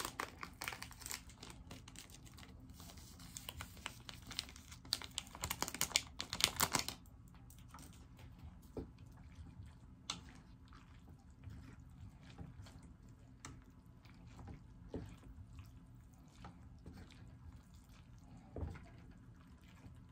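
A fork stirring and lifting saucy instant noodles in a pot: a dense run of wet clicks and clatter for the first seven seconds or so, then scattered light clicks.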